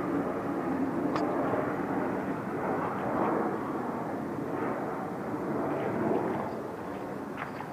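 A loud, steady rumbling drone from the sky that sounds like an aircraft overhead, though no aircraft could be seen. It eases off slightly near the end.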